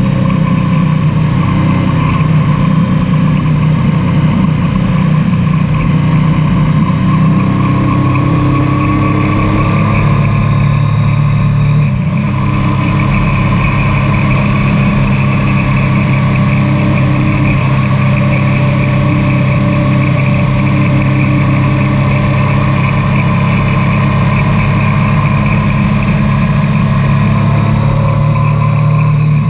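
Triumph Tiger 800's three-cylinder engine running under way, its note loud and fairly steady, with a brief dip and change of note about twelve seconds in.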